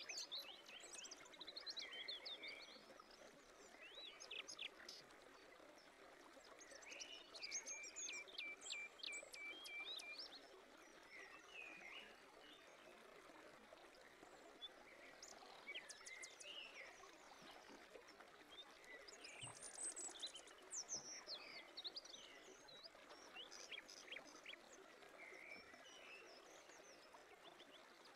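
Faint birdsong: several small birds chirping and whistling over a soft steady hiss, with one bird giving a run of evenly repeated notes about eight seconds in.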